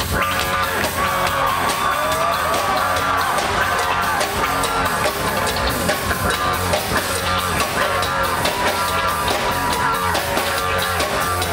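Live rock band playing, with a drum kit driving a steady beat under pitched instruments.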